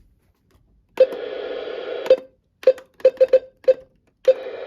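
Electronic beeps from a radio receiver: a steady buzzy tone of about a second, a quick run of five short beeps, then another tone of about a second. Each ends in a small click.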